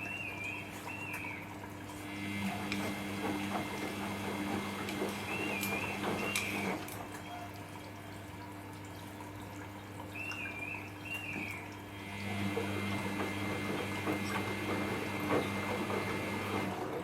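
Samsung EcoBubble front-load washing machine running a cotton wash: the drum tumbles the wet load in two bouts of about four seconds each, about a second in and again near the end, with the motor humming and water sloshing, and a quieter pause between them.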